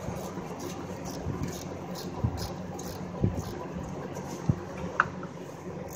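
Hand ratchet tightening a bolt, with repeated faint clicks and a few sharp metallic knocks, over a steady background hum.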